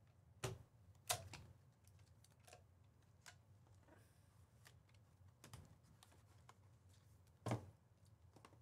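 Near silence broken by a handful of scattered light clicks and taps, the clearest about a second in and near the end.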